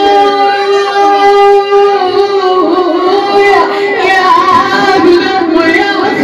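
A woman singing a southern Iraqi lament (nawa'i), holding one long note for about two seconds before breaking into wavering, ornamented turns of pitch.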